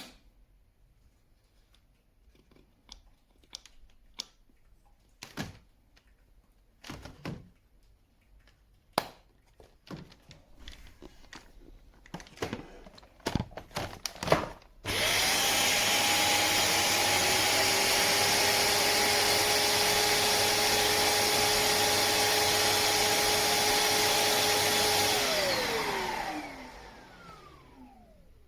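Several scattered clicks and knocks, then a Shark Detect Clean & Empty vacuum motor starts suddenly and runs loud and steady for about ten seconds with a high whine. It then winds down, its pitch falling as it spins to a stop.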